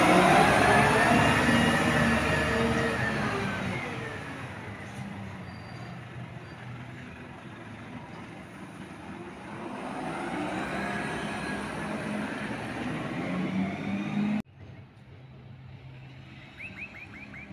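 Side-loader garbage truck running, loud at first with a whine that rises and falls, then fading as the truck moves off and swelling again about ten seconds in. The sound cuts off abruptly near the end to quiet street background.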